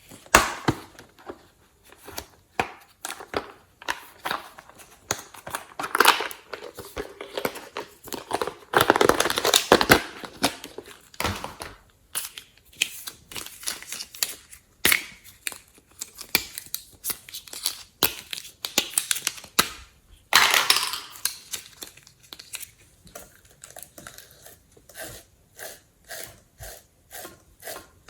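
Hands squishing and stretching glossy slime: a rapid run of sticky clicks and pops, with longer crackling stretches about nine and twenty seconds in.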